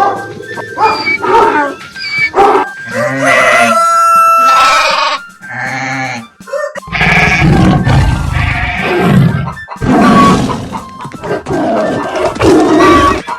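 A string of animal calls and grunts over background music. Pitched, bending calls come first, and heavier, rougher low calls follow from about halfway through.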